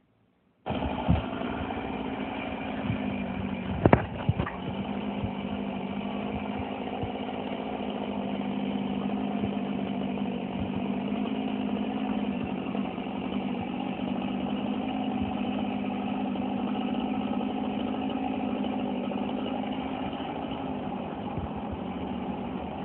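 An engine running steadily at an even speed, with a few sharp knocks about four seconds in.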